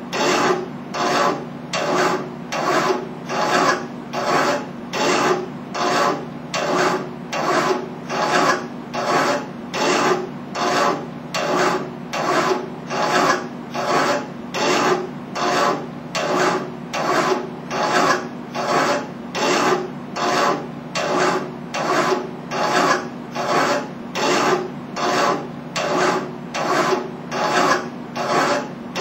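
Baileigh TN250 tube notcher cutting a notch in a tube: even, rhythmic rasping cut strokes, a little more than one a second.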